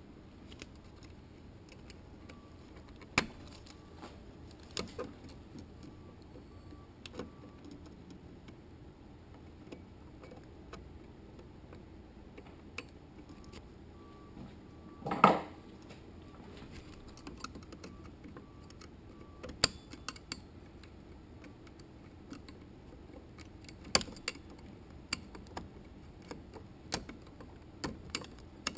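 Scattered metal clicks and clinks of a hand tool and parts being worked inside an aluminium automatic transmission case, as the output shaft and its retaining clip are fitted. The loudest is a short clatter about halfway through.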